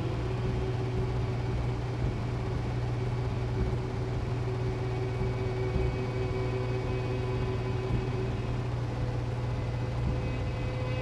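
A steady low drone with a few long held tones above it, a dark ambient soundtrack; more high held tones come in near the end.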